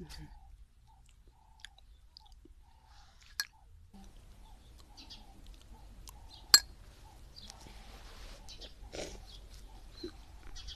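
A person chewing food close to the microphone, with scattered sharp clicks; the loudest click comes about six and a half seconds in.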